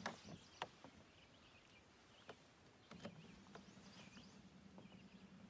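Near silence: faint riverside ambience with a few distant bird chirps and some light clicks. A low, steady hum comes in about three seconds in.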